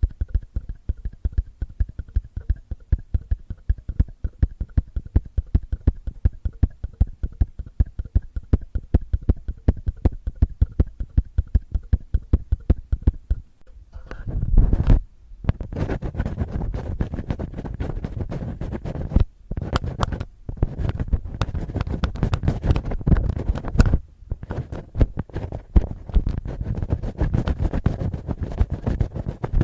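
Fingertips and fingernails scratching and rubbing on a binaural microphone as ear-cleaning ASMR: at first quick, even scratching strokes, then, about halfway through, heavier, denser rubbing with a deeper sound, broken by a few brief pauses.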